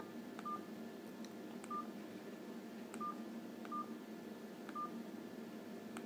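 Alcatel 2000 mobile phone keypad beeps: about six short, faint beeps of the same pitch, irregularly spaced, each with a faint click as a navigation key is pressed to move through the menus.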